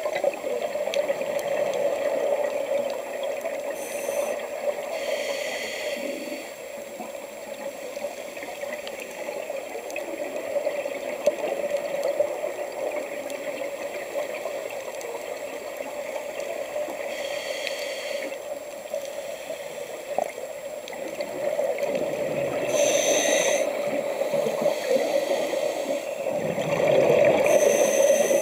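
Underwater sound of a scuba diver breathing through a regulator: exhaled bubbles gurgle out in four bursts several seconds apart, over a steady watery rushing.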